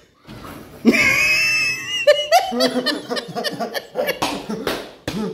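A man laughing hard, with a high-pitched squealing laugh held for about a second near the start, then broken chuckling.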